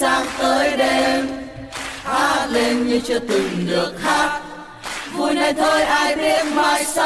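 Background music: a song with sung vocals, dipping softer for a moment around the middle.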